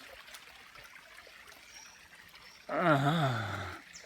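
Stream water trickling steadily. Nearly three seconds in, a man gives a drawn-out, wavering vocal cry lasting about a second, its pitch wobbling up and down before it drops off.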